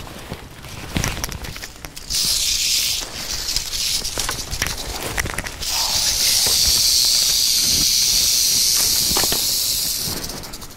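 Rattlesnake rattling its tail in warning: a loud, steady dry buzz that sounds for about a second, breaks off, then comes again for about four and a half seconds before stopping near the end. Footsteps crunch through dry brush underneath.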